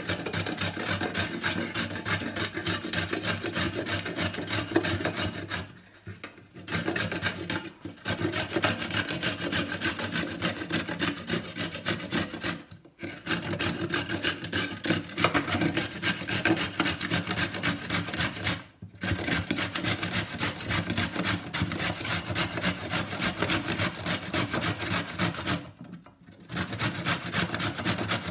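Carrot being grated on a stainless steel box grater: rapid, continuous rasping strokes, broken by a few brief pauses.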